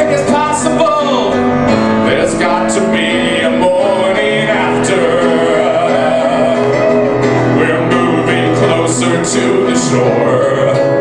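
A man singing with live piano accompaniment; his voice holds and bends long notes over the piano chords.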